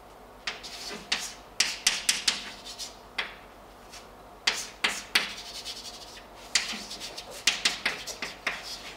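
Chalk writing on a blackboard: irregular runs of quick taps and scratchy strokes, with a short pause a little past the middle.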